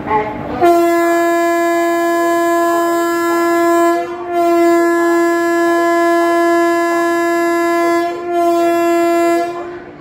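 WAP-4 electric locomotive's horn sounded for departure: one steady, loud tone held in long blasts, broken very briefly twice and stopping near the end.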